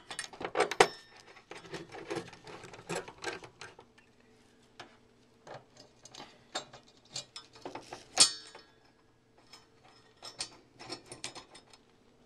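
Screwdriver turning a mounting bolt through a washer and bracket into the back of a flat-screen TV, making small metal clicks and scrapes. The clicks come close together for the first few seconds, then more sparsely, with the sharpest click about eight seconds in.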